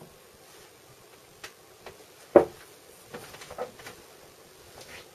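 Whiteboards being handled and swapped by hand: a few light taps and knocks, one louder knock a little over two seconds in, followed by a cluster of smaller taps.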